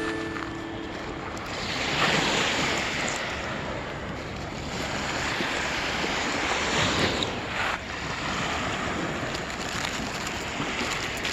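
Lake Erie waves breaking and washing up the shore, swelling about two seconds in and again around the middle, with wind buffeting the microphone.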